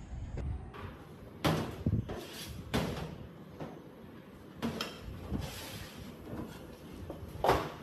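Household knocks and clatters: several sharp knocks a second or so apart, with the loudest near the end, as plates, a wooden cutting board and a knife are set down on a stainless-steel table.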